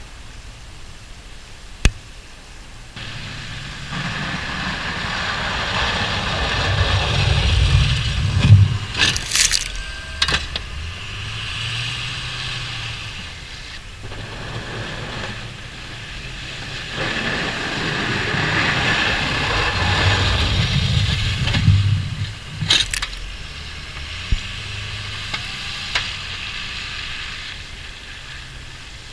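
Ford F250 6.0 Powerstroke diesel pickup with a Fisher plow pushing snow past twice, the engine and scraping noise building to a peak and fading each time, with sharp clanks near each peak.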